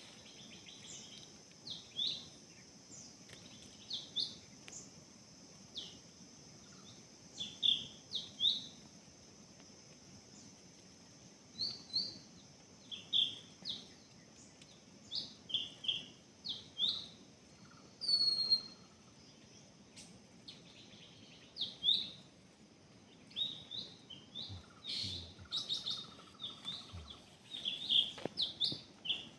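A bird chirping: short, sharp notes, often in quick pairs, repeated every second or two, with one longer falling whistle about midway, over a steady high-pitched drone.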